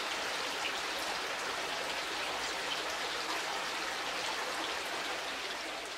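Falling water splashing steadily, from a small tiered stone garden fountain and a rock waterfall spilling into a swimming pool.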